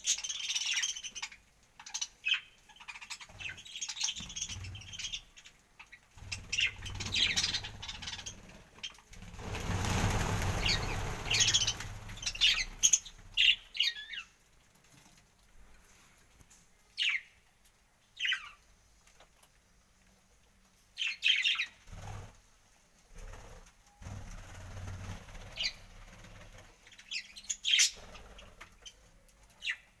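Budgerigars chirping in short, scattered calls, with a rush of wing flapping about nine to twelve seconds in as several birds flutter off the feed dish.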